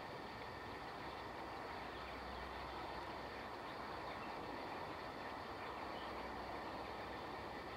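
Avro Vulcan XH558's four Olympus turbojets at approach power on final approach: a faint, steady jet rumble and rush.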